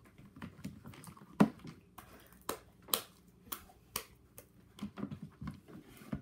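Sticky homemade slime being squeezed and stretched in the hands, giving irregular sharp clicks and pops, the loudest about a second and a half in.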